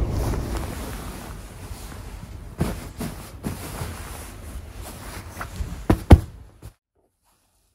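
A hand patting and pressing a pillow and futon quilt: fabric rustling over a low rumble that fades, with a few soft thumps. The two loudest thumps come close together about six seconds in, then the sound cuts off abruptly.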